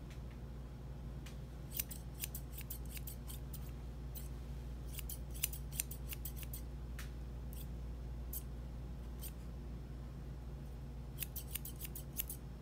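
Curved grooming shears snipping through a dog's fluffy coat in quick runs of crisp snips, with pauses between runs, over a steady low hum.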